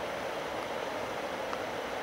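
Steady rushing of water, as of a river rapid or stream: an even, unbroken roar with no rise or fall.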